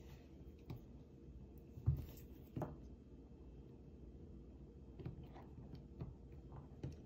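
Faint clicks and taps of hands pushing component leads into a solderless breadboard, half a dozen scattered through, with a dull knock about two seconds in being the loudest.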